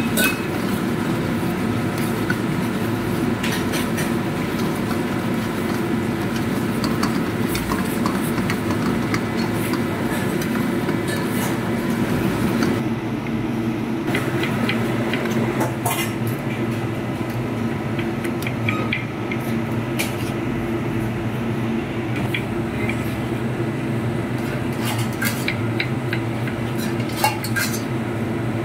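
A steel ladle stirring thick gravy in an iron kadai and clinking against the pan and a plate, with scattered sharp clicks. Under it runs a steady low kitchen drone.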